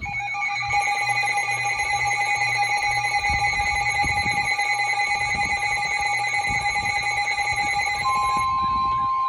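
Emergency Alert System attention signal: a loud, steady electronic alarm tone at several fixed pitches, with a stronger single tone joining about eight seconds in. It announces an incoming severe thunderstorm warning.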